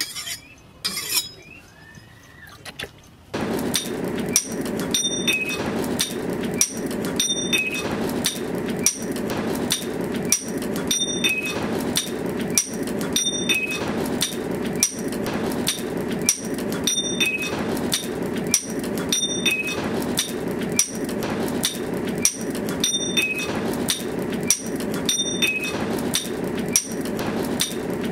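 A cleaver blade stroked a few times across a wet whetstone. About three seconds in, a steady, noisy sound starts suddenly and takes over, with an even rhythm of clicks and high tones that repeat every couple of seconds.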